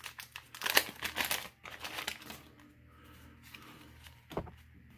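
The wrapper of a 1988 Fleer baseball card pack being torn open and crinkled by hand. The crackling is loudest in the first second or so and dies down after about two and a half seconds. There is one short sharp tap near the end.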